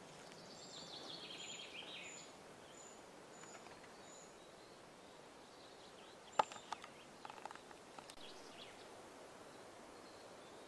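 Small woodland songbirds singing faintly: a quick trill that drops in pitch over its first two seconds, and thin very high notes repeated about twice a second. In the middle come a few sharp clicks, the loudest of them about six seconds in.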